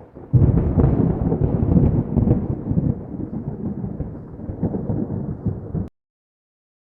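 Thunder rumbling, loud and deep, starting sharply and cutting off suddenly about six seconds in.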